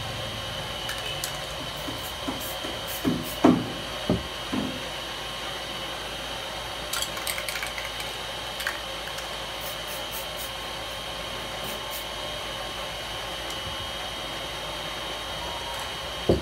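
Aerosol spray paint cans being handled, with a few knocks as cans are set down on the table. Later come short clicking rattles, as a spray can's mixing ball is shaken. A steady background noise runs underneath.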